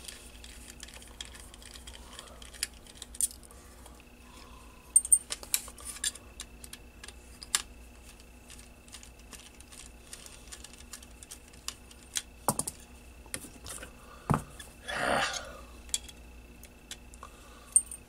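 Small irregular clicks and ticks of a screwdriver working screws and the plastic and metal parts of a radio's circuit board assembly as it is taken apart by hand, with a brief muffled rustle about three-quarters of the way through.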